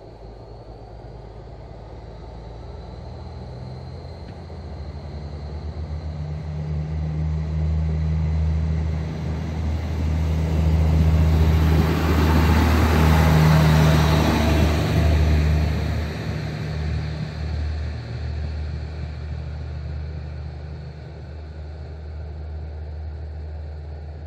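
NE 81 diesel railcar passing close by on departure: a low diesel drone that grows louder to a peak about halfway through, with wheel and rail noise at its closest point, then fades as the railcar draws away.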